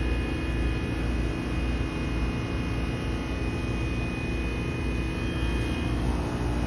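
Heat pump outdoor unit running steadily in defrost mode: a constant low hum with a thin, steady high-pitched tone over it.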